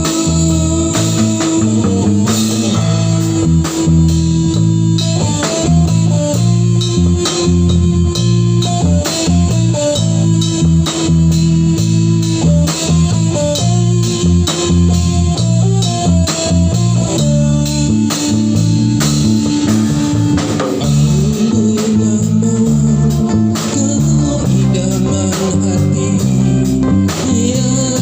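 Music with guitar, bass and drums played loud and steady through a sound system.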